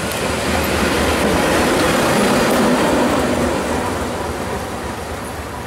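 GE B23-7 diesel locomotive running light passes close by: the chug of its 12-cylinder FDL prime mover over the rumble of its wheels on the rails. It grows louder to a peak about two to three seconds in, then slowly fades as it moves away.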